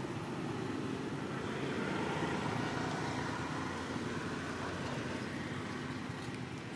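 A road vehicle's engine running steadily, growing slightly louder about two seconds in.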